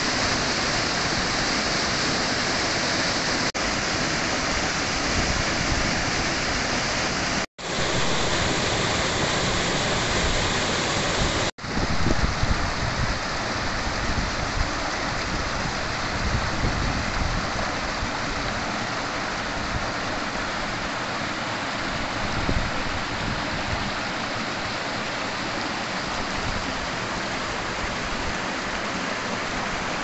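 Mountain stream rushing and splashing down small cascades over boulders, a steady dense rush of water. The sound cuts out for an instant twice, at about 7½ and 11½ seconds in.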